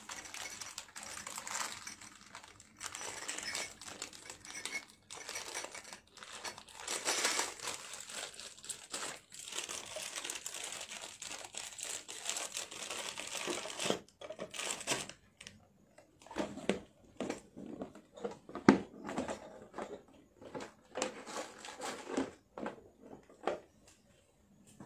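Packaging crinkling and rustling as jewellery is handled and wrapped, for about fourteen seconds, then scattered light knocks and clicks as items are moved and set down.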